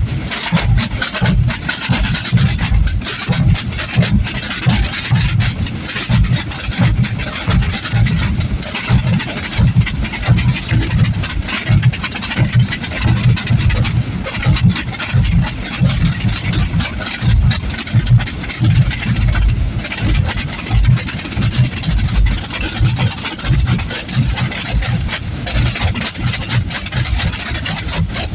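Massed Holy Week drums and bass drums (tambores and bombos) playing together in a continuous, dense rolling beat. Deep bass-drum thumps run under the rattle of many snare-style drums.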